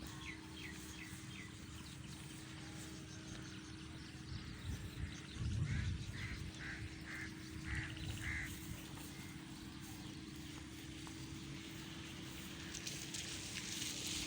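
A bird calling outdoors: a series of short, repeated chirps, about two or three a second, over a steady low hum.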